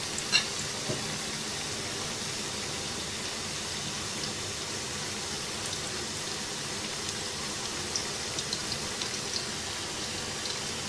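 French fries deep-frying in hot oil: a steady sizzle with scattered small pops and crackles.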